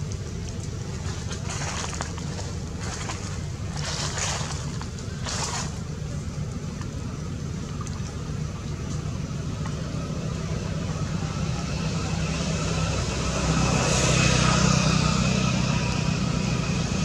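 Outdoor background noise: a steady low rumble with several short hissing rushes in the first few seconds, swelling louder near the end.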